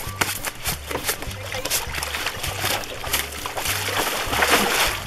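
Background music with a steady stepping bass beat, over water splashing as a landing net with a large tambacu in it is dipped into a pond and the fish thrashes. The splashing is loudest about four seconds in.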